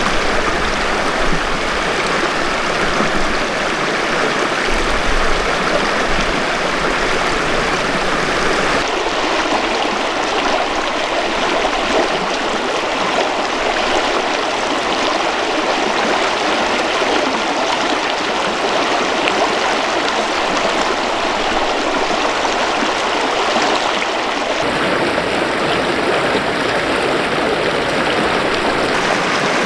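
Mountain river water rushing steadily, a continuous even noise; its tone shifts abruptly about nine seconds in and again near the end.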